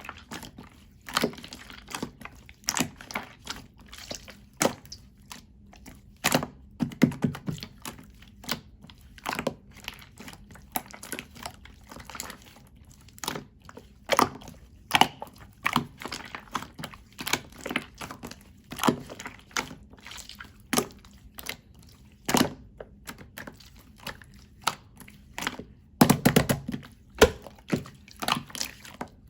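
Slime being squished and pressed by hand, giving an irregular run of sharp clicks and pops from trapped air, with a few duller squelching thumps and a quick cluster of pops near the end.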